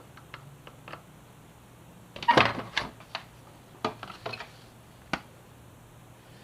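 Scattered clicks and knocks of hand tools and plastic fairing parts being handled as a motorcycle's lower fairing panel is taken off, with the loudest clatter about halfway through.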